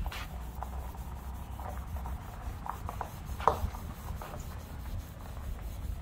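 A cloth strip pulled back and forth around the brass bell of a steam whistle, rubbing the metal in short irregular strokes, the loudest about three and a half seconds in, over a steady low rumble.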